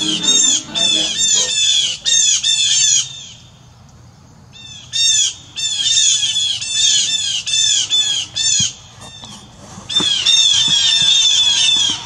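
Blue jay giving its harsh "jay" call over and over in quick runs of several notes, with a pause about three seconds in before the calling resumes.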